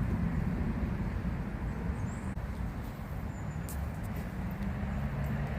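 Outdoor park ambience: a steady low rumble like distant traffic, with a few faint high bird chirps. Near the end, a pigeon begins to coo.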